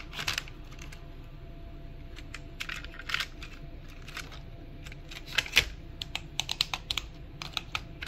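Irregular plastic clicks and taps as fingers handle and press on a toy remote-control transporter truck, feeling for its on/off button.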